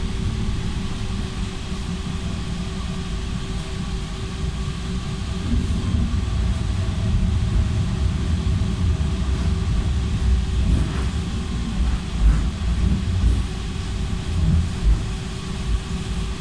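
Belkommunmash BKM 60102MN low-floor tram running on its rails, heard from inside the passenger cabin: a steady low rumble of wheels and running gear with a constant hum. The rumble grows louder partway through, with a few heavier knocks in the last third.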